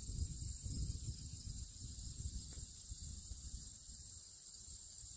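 Steady high-pitched chorus of prairie insects singing in the grass, with gusty low wind rumble on the microphone.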